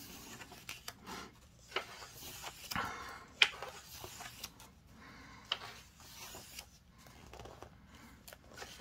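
Pages of a hardcover book being turned and pressed flat by hand: paper rustling and swishing, with a few crisp flicks, the sharpest about three and a half seconds in.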